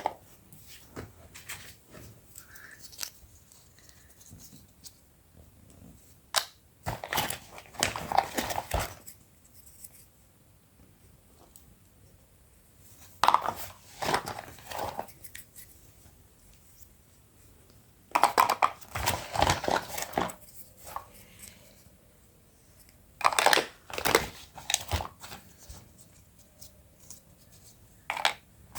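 Packaging being crinkled and torn open in about four loud bursts of rustling, with small clicks between.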